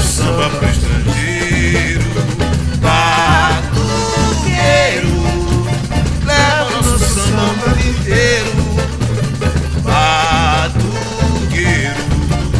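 Brazilian percussion ensemble playing samba-style music: a dense, steady pattern of low drums, with a wavering melody line laid over it twice.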